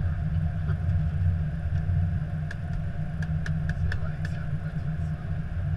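Steady low rumble inside the cockpit of an Airbus A321 taxiing slowly with its engines at idle. A quick run of light clicks comes in the middle.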